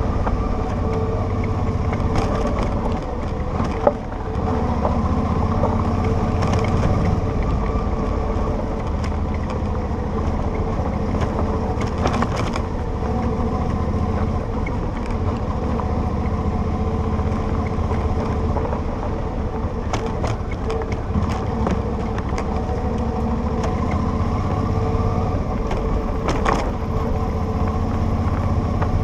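Motorcycle engine running steadily under way on a rough gravel dirt road, with scattered clicks and knocks from the bumpy surface; one sharp knock about four seconds in.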